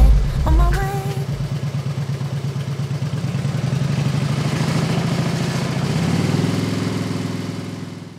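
Motorcycle engine idling with a steady, fast, even pulse. Its tone shifts slightly about six seconds in, and it fades out at the end.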